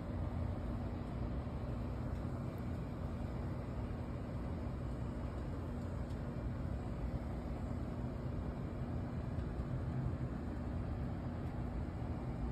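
Steady low background rumble with a faint, even hum underneath, unchanging and without distinct events.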